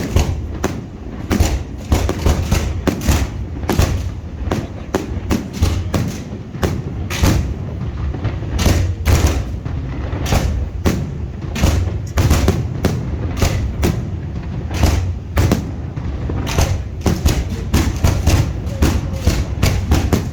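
Fireworks finale: an irregular barrage of aerial shell bursts, several bangs a second over a continuous low rumble.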